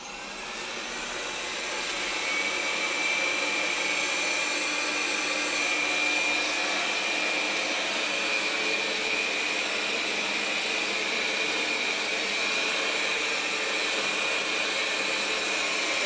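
Roidmi Eva robot vacuum's suction motor spinning up over the first couple of seconds, then running steadily at maximum suction with a high whine as the robot drives across the floor.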